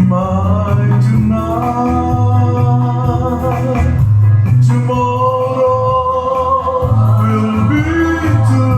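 Music: a slow ballad's opening, with long, wavering held melody notes over guitar and a repeating bass line.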